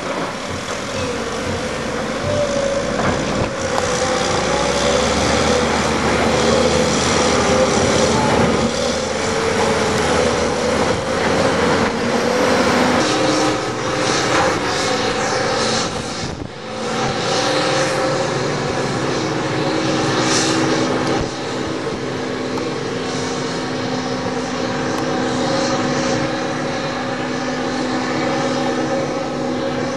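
Heavy diesel plant working: an excavator and an articulated dump truck running, a continuous engine drone whose pitch shifts as they work and move. There is a brief dip about halfway through, after which the dump truck's engine carries on as it drives along the haul road.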